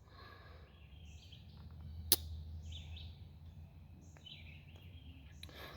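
A single sharp click about two seconds in, a single-blade slip-joint pocketknife's blade snapping at its half stop, over faint bird chirps and a low steady hum.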